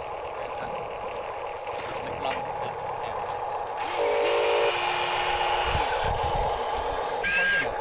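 Huina RC excavator's electric drive motors whining steadily as its tracks crawl over loose dirt, with a louder buzzing tone joining about four seconds in.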